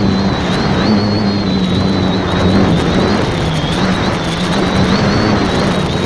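Electric motors and propellers of an X550AIOP multicopter in flight, heard through its onboard keychain camera: a steady low buzz with a high whine that wavers up and down in pitch as the throttle changes, over a rushing noise.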